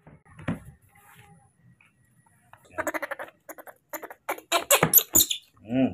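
Baby monkey's high-pitched squeaks and chattering calls: a quick pulsing call around the middle, then a string of sharp, louder squeaks over the last two seconds, ending in a short falling cry. A soft thump about half a second in.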